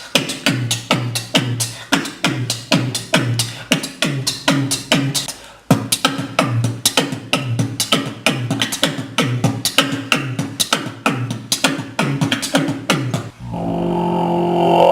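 Beatboxing: one person's mouth percussion in a steady beat of sharp clicks and hissing hi-hat sounds over short falling bass notes about twice a second, with a brief break about six seconds in. Near the end it switches to a steady droning hum.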